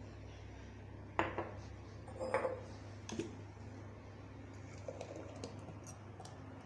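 Glassware and jars being handled and set down on a marble kitchen counter: a few knocks and clinks, the sharpest about a second in and just after two seconds, with lighter taps later, over a low steady hum.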